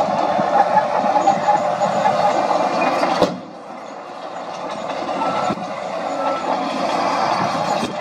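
Crawler bulldozer working, its diesel engine running and its steel tracks moving. The sound drops suddenly about three seconds in, then builds steadily louder again.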